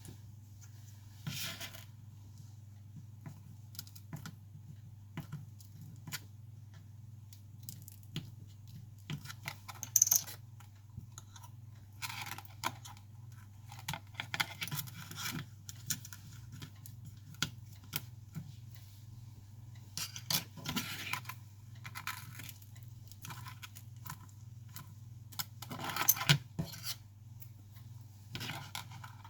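Small repair tools and iPhone parts being handled on a work surface: scattered light clicks, taps and scrapes, with a sharper click about ten seconds in and a flurry of them a little before the end, over a steady low electrical hum.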